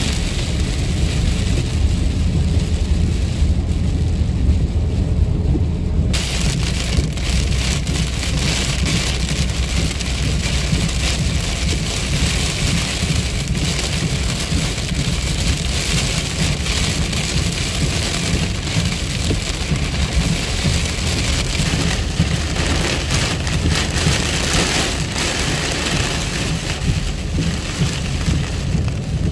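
Heavy rain pelting a car's windshield and roof, heard from inside the moving car as a dense, steady hiss of drops over low road rumble. For the first six seconds or so there is mostly low rumble; then the rain noise comes in suddenly and holds.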